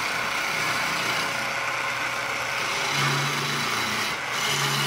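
Motor-driven wood lathe running while a hand-held turning chisel cuts a spinning wooden baluster, a steady hiss of cutting over the motor's low hum. The hum swells twice, about three seconds in and near the end.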